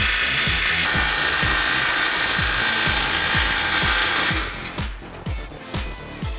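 Power tool running with a socket, tightening the exhaust clamp bolts, over background music with a steady beat; the tool stops about four seconds in.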